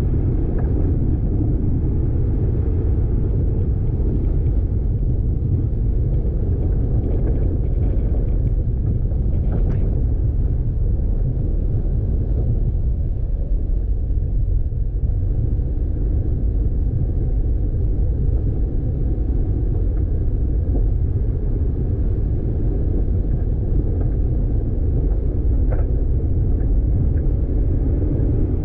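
Vehicle driving along a dirt road: a steady low rumble of tyres and engine, with a couple of faint ticks.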